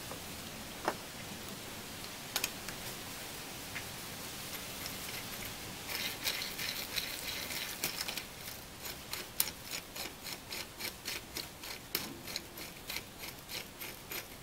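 Pulley installer tool being turned on a power steering pump shaft to press the new pulley on: a few separate metal clicks, then from about six seconds a scraping, ticking sound, settling into even clicking about three times a second.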